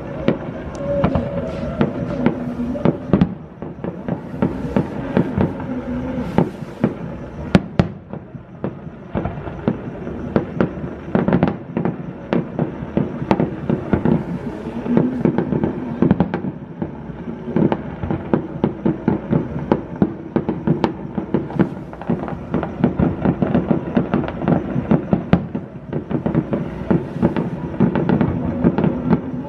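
Fireworks and firecrackers going off without a break, a dense run of sharp cracks and pops, several a second, with music playing underneath.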